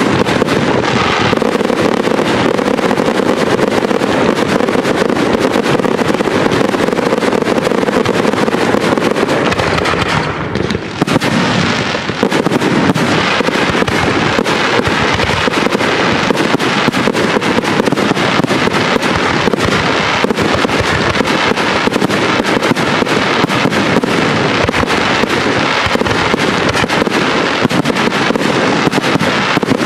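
Aerial fireworks display: a dense, continuous barrage of shell bursts and rapid crackling, with a brief lull about ten seconds in.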